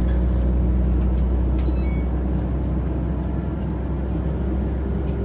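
Class 172/0 Turbostar diesel multiple unit heard from inside the carriage while running along the line. Its underfloor diesel engine and transmission give a steady low drone, with running noise from the wheels and track.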